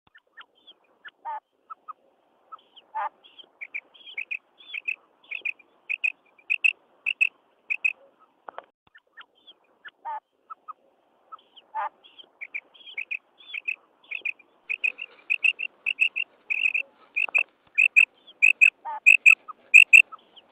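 Female common quail calling, the 'kirak' used to lure males in quail hunting: many short, high notes, often in pairs, repeated rapidly by overlapping birds, with a few lower rattling calls among them. The calls grow denser and louder toward the end.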